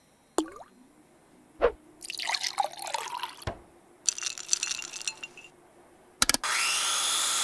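Cartoon sound effects of fruit plopping and squelching into a blender jug, then a click and the blender motor running with a rising whine for the last second.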